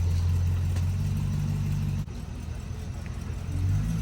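Car engine idling with a steady low hum. The hum cuts off abruptly about halfway through, leaving a quieter rough noise, and a steady hum comes back near the end.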